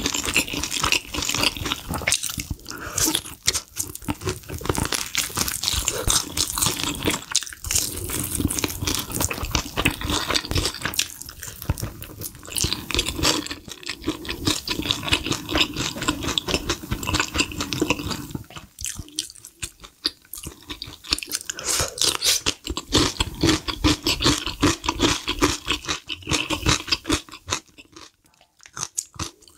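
Close-miked crunching and chewing of crisp, sauce-glazed fried chicken: a dense run of crackles and mouth sounds, with a lull about two-thirds of the way in and another near the end.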